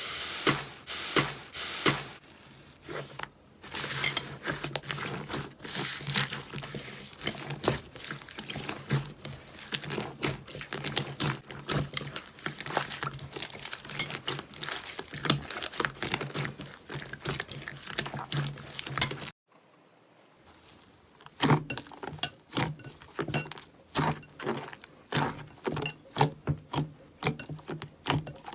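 Slime being squeezed and pressed by hand, giving a dense, irregular run of crackles, clicks and pops. It stops briefly about two-thirds of the way through, then starts again.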